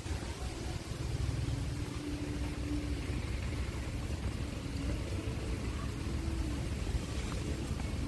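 Strong wind buffeting the microphone, a steady low rumble, with a faint hum coming and going at times.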